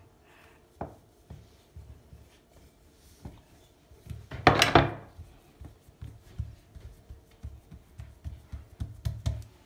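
Wooden rolling pin rolling out a small piece of dough on a floured countertop, with soft low thuds and rubbing as hands press and pat the dough flat. One louder knock about four and a half seconds in, then a run of small quick thuds.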